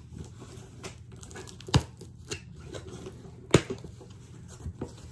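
A shipping package being opened by hand and its packaging handled: rustling and crinkling with a few sharp clicks, the loudest nearly two seconds in and about three and a half seconds in.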